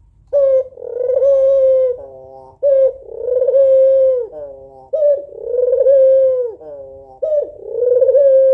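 A female white Barbary dove (puter) cooing its calling call to a male: four phrases in a row, each a sharp short note, then a long steady coo, then a softer, lower falling tail, repeated about every two and a half seconds.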